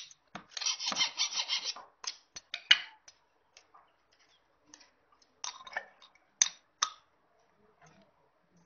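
Metal tool scraping along a steel chainsaw guide bar in quick strokes for about the first two seconds, then a scattering of sharp metal clicks and knocks as the bar is set onto the saw body.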